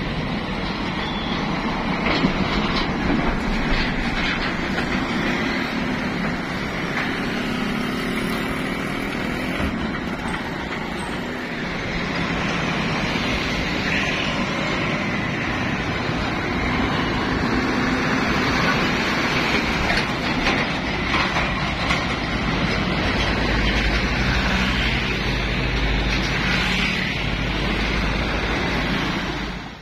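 Road traffic passing close by: diesel trucks, cars and motorbikes, with steady engine and tyre noise. A deeper engine rumble swells near the end as heavy vehicles pass. The sound cuts off suddenly at the very end.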